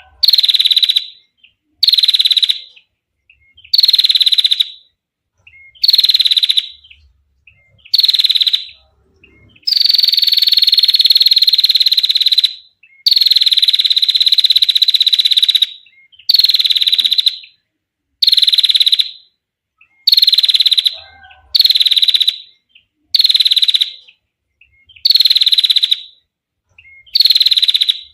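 Female prinia (prenjak) giving its long, clear trilling 'ngetir' call: high buzzy trills repeated about every two seconds, most lasting about a second, with two longer trills of about three seconds near the middle.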